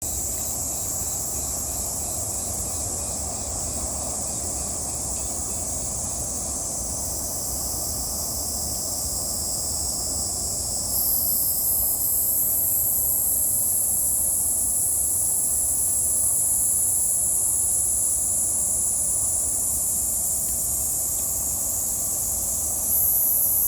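Summer insect chorus in a forest, a high steady buzzing that grows louder about halfway through and again near the end, over a low steady rumble.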